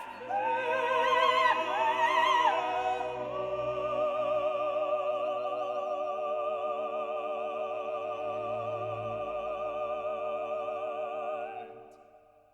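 Background music: an operatic singing voice with accompaniment, settling into one long held note with a wide vibrato that fades out near the end.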